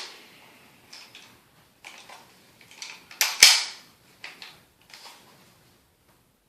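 Clicks and clacks of a BB-gun revolver being handled, with one loud, sharp click about three and a half seconds in.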